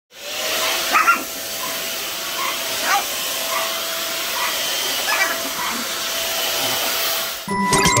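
Deerma DX700 stick vacuum cleaner running steadily with a high whine, while a small dog gives a few short yaps: about a second in, near three seconds and around five seconds.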